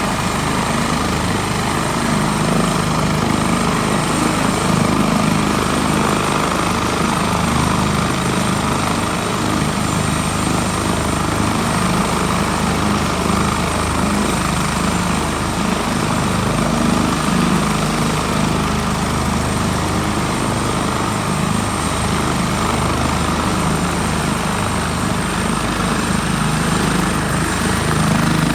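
Air ambulance helicopter's turbine engines and rotor running steadily, with a high-pitched turbine whine that rises slightly near the end.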